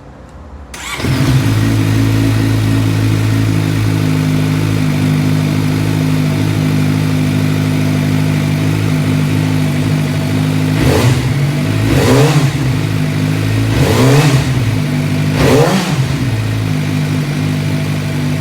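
Four-cylinder motorcycle engine starting about a second in and settling into a steady idle. Later it is revved four times in quick succession, each rev climbing and dropping back to idle.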